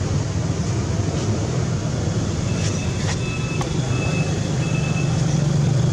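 Steady low rumbling background noise, with a few faint, thin high tones about halfway through.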